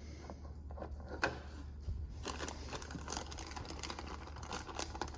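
Light, irregular clicking and tapping over a steady low wind rumble.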